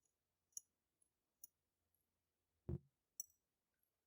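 A few faint, sharp clicks of small metal lock pins being tipped out of a padlock core and handled on a work surface, with a duller knock about two and a half seconds in.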